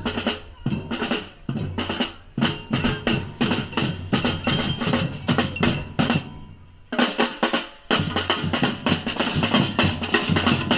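Batucada percussion ensemble playing a samba-style rhythm on bass drums and snare drums. About six seconds in the drumming thins out for a moment in a break, then the full group comes back in with the bass drums.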